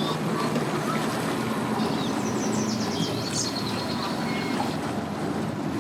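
Sea-Doo personal watercraft engine running with a steady low hum as it comes in to the ramp, with short high chirps of birds about two seconds in.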